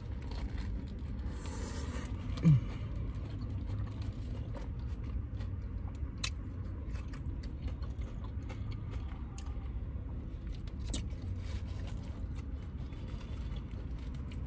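Close-miked eating: chewing and crunching, with scattered small clicks and mouth sounds over a steady low rumble. One short, louder low sound with a falling pitch comes about two and a half seconds in.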